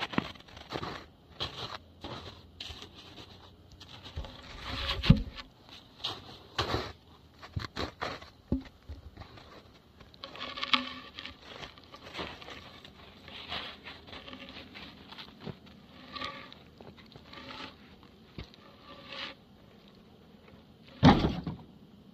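Boots crunching in snow with scattered knocks and scrapes as a heavy cut log section is handled and stood on end. A loud thud comes about five seconds in, and the loudest thud comes near the end as the log is heaved against a pickup's tailgate.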